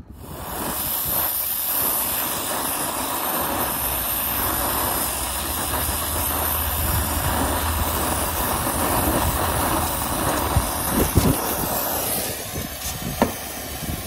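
Brazing torch burning steadily against a copper tube joint on a filter drier, heating it to sweat the joint off. The steady torch noise starts suddenly and stops about twelve seconds in, with a few light knocks near the end.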